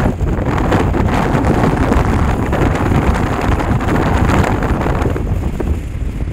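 Wind buffeting the microphone over the steady low rumble of a car in motion.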